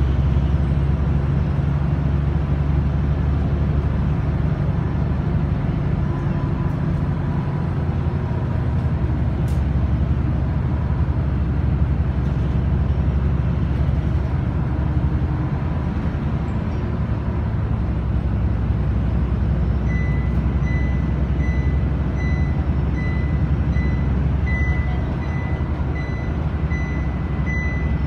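Inside a moving city bus: the steady low rumble of the engine and road noise. About twenty seconds in, a high-pitched electronic beeping starts and keeps on.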